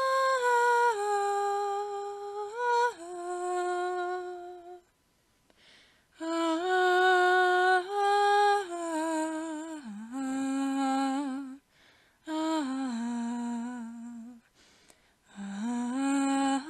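A voice humming a slow, wordless melody in long held notes that step up and down, in several phrases with short pauses between them.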